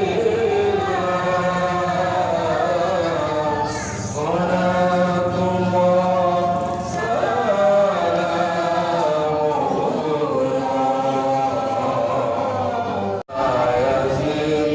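A group of voices chanting or singing together in long, drawn-out notes. The sound drops out for an instant a little before the end.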